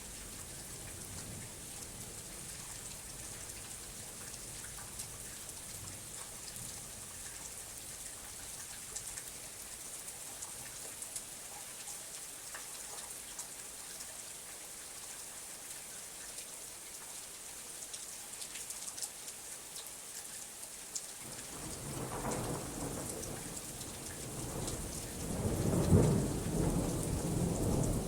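Steady rainfall with scattered drops ticking; about three quarters of the way in, a low thunder rumble builds and swells to a loud peak near the end.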